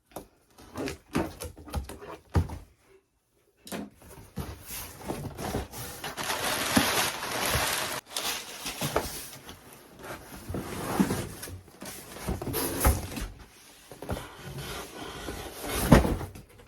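A shipping box being opened and its packaging handled: rustling and scraping with scattered knocks and thuds.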